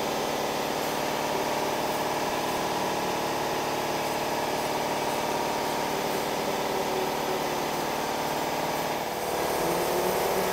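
A motor-driven machine running steadily: a humming drone with a hiss over it. Its pitch shifts slightly about nine seconds in.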